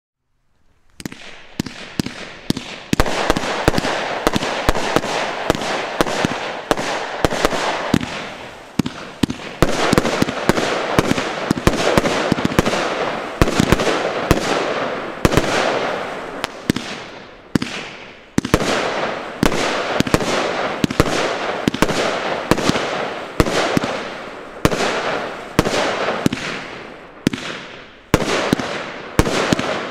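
Nordlicht "Der Hooligan" compound firework cake (91 shots in mixed 20, 25 and 30 mm calibres) firing a rapid, unbroken barrage of shots and bursts, starting about a second in, at around two or three shots a second.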